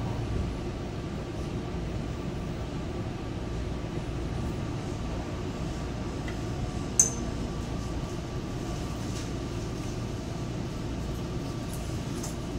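Running noise heard inside a moving electric commuter train car on the Tobu Urban Park Line: a steady low rumble of wheels on the track with a faint steady hum, and one sharp clink about seven seconds in.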